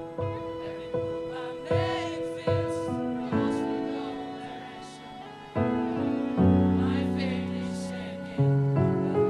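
A mixed choir singing with instrumental accompaniment. The accompaniment's notes fall in a steady pulse at first, then the voices swell into long held chords with deep low notes in the second half.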